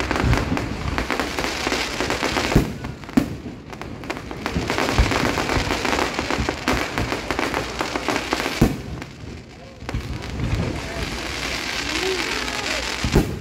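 Aerial fireworks bursting overhead: a dense, continuous crackle of exploding stars, cut by several sharp bangs about two and a half seconds in, three seconds in, eight and a half seconds in and just before the end.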